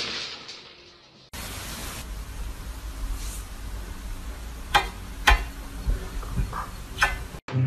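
Steady hiss and low rumble of a handheld phone recording, broken by three sharp clicks or knocks, two close together past the middle and one near the end.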